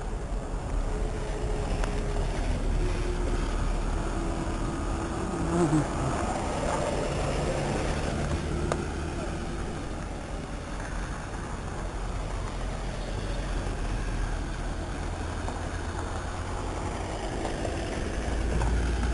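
Road traffic: vehicle engines running and passing on a rough street, with a car driving past close by near the end.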